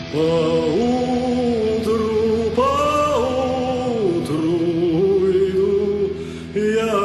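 Music: a voice singing a slow melody in long held notes that glide between pitches, over a steady low backing.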